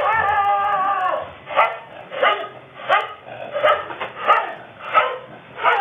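A dog gives one long, high whining cry that falls away at its end, then barks steadily about once every two-thirds of a second. It is alarm barking at a leopard that has got in among the cattle.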